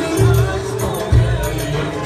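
Loud live music with a deep drum beat landing about once a second under a held, wavering melody line.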